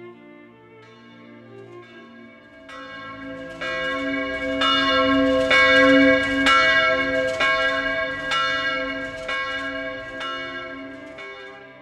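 Church bells ringing, a stroke about once a second, swelling to full strength and then fading away.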